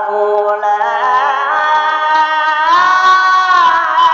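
Male Qur'an reciter's voice in melodic tilawah, drawing out one long ornamented note that wavers in pitch, then climbs to a higher sustained note about two and a half seconds in, all on one breath.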